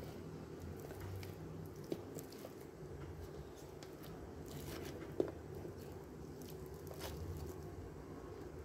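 Boiled potatoes being mashed with a metal fork in a plastic bowl: faint soft squashing with scattered clicks of the fork against the bowl, two of them sharper, about two and five seconds in.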